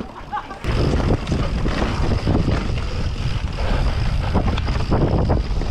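Wind rushing over the microphone of a bike-mounted camera and mountain bike tyres rumbling over a dirt trail at speed, with frequent small knocks and rattles from bumps; it starts loud about half a second in.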